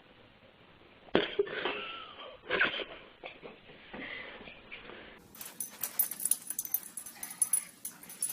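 A pet animal making wheezing sounds, with sudden loud outbursts about a second in and again at about two and a half seconds. After about five seconds comes a different sound: rapid clicking and rattling.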